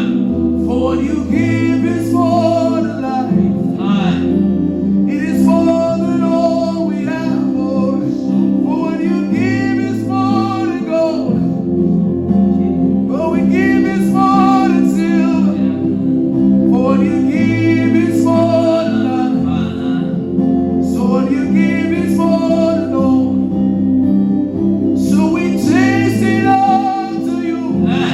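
Worship song: singing over sustained chords, with the bass changing every few seconds.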